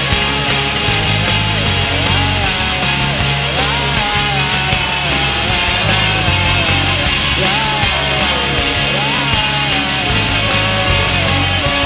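Rock song played by a full band, loud and steady, with a melody line sliding up and down in pitch over a dense guitar and bass backing.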